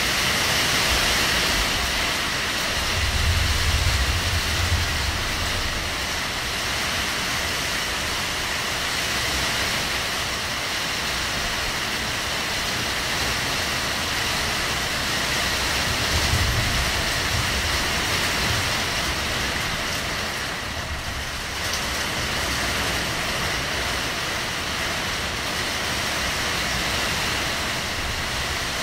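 Heavy rain pouring steadily, a dense even hiss of falling rain. A low rumble swells under it about three seconds in and again around sixteen seconds.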